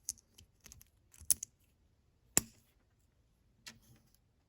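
Plastic Lego bricks clicking as they are handled and pressed together: a handful of short, sharp clicks, the loudest about two and a half seconds in.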